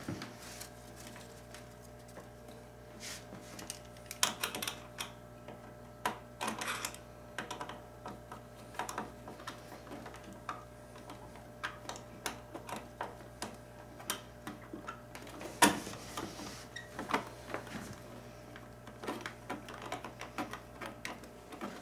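Hand screwdriver driving screws up into a wheelchair's armrest bracket: a run of irregular small clicks and scrapes, with a louder knock about two-thirds of the way through.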